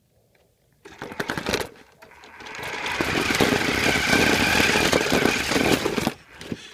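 Toy RC car's electric motor and gears whirring as it drives, with a steady whine. A short burst about a second in, then the whir builds up, runs for a few seconds and stops near the end.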